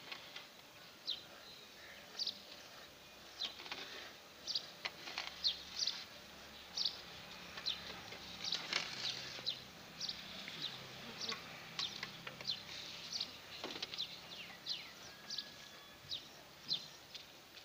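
Hand-milking a cow: short hissing squirts of milk hitting a small steel pot, one after another at about one or two a second as the teats are stripped in turn.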